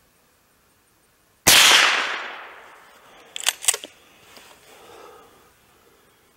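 A single shot from an FN Browning Trombone .22 LR pump-action rifle about one and a half seconds in, its report dying away over about a second and a half. About two seconds after the shot comes a quick run of sharp metallic clicks as the pump slide is worked back and forth, ejecting the spent case and chambering the next round.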